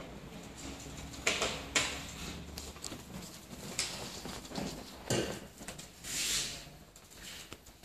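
Irregular rustling and brief knocks, as of objects being handled, with a sharper knock a little over a second in and a longer swish about six seconds in.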